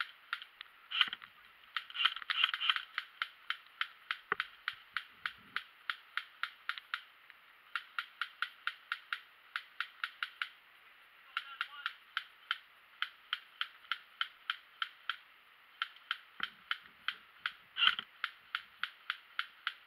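Airsoft guns firing a steady string of single shots, about three a second, in runs broken by short pauses. A few louder pops stand out about a second in, around two seconds in and near the end.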